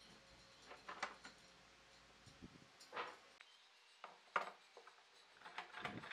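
Scattered light knocks and clinks of a steel pipe clamp and pine boards being handled and set in place on a workbench. The sharpest knock comes a little past four seconds in, with a cluster of smaller ones near the end.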